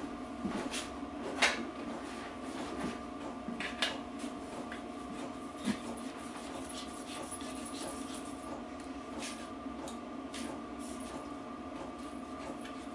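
A few light knocks and clatters of tools and objects being handled, over a steady workshop hum.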